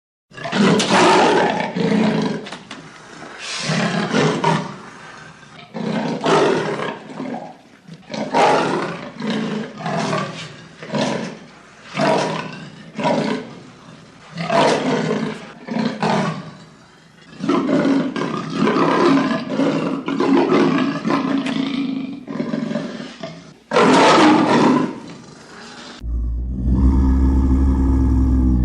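Leopard roaring: a long series of hoarse, rasping strokes, mostly about a second apart, with a longer run in the middle. Near the end a lower, steadier rumble sets in as the next roar begins.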